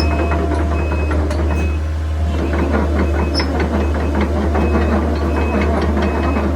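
Case CX160 excavator's diesel engine running steadily, with a constant low drone and a busy clatter of clicks and rattles throughout.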